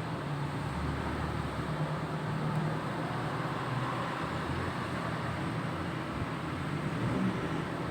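Steady background rumble and hiss with an uneven low hum, like distant road traffic or room noise.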